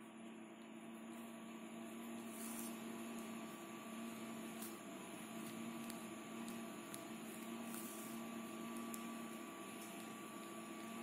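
Steady background hum with a fainter, higher steady whine over a light hiss: room tone.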